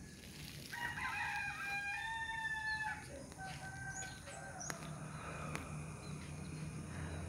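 A rooster crowing: one long, held crow starting about a second in, followed by a fainter second crow that fades out around the middle.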